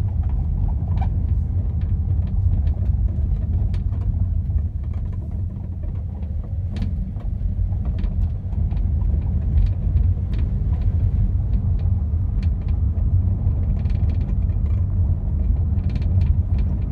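Volkswagen Polo driving, with a steady low road rumble and irregular sharp clicks and knocks throughout: an intermittent rattle at the rear of the car. The owner has checked the door panel, shock absorber, wheel drum, boot and spare-wheel mounting without finding its cause.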